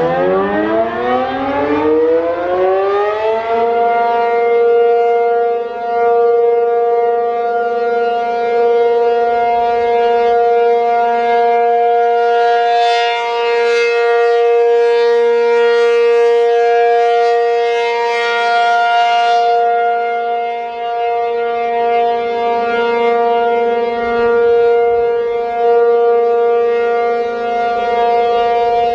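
ACA P-50 outdoor warning siren winding up, rising in pitch over the first few seconds, then holding a steady, very loud tone for its 3-minute alert signal, its loudness slowly swelling and dipping.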